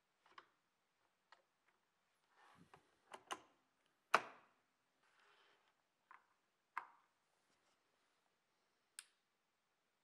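Sparse small clicks and knocks from hands fitting a metal camera clamp, ball-head mount arm and mount screw, and pushing a DC barrel plug into the ventilator's socket. The loudest is a single sharp click about four seconds in.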